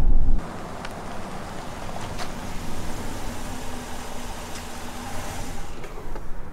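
Low in-cab road rumble that cuts off about half a second in, giving way to a steady outdoor hiss with a faint low hum and a few light ticks.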